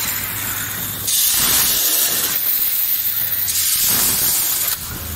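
Grain packing machine running, a loud hiss of noise that shifts in level every second or so as it cycles through bags.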